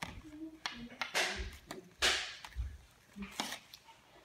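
Toy packaging being opened by hand: cardboard and plastic wrapping rustling and tearing in several quick swishes, with a few sharp clicks from scissors and plastic parts.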